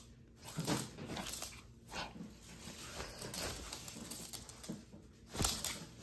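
A small dog making short, irregular play sounds while tussling with a person's hand on a hard floor.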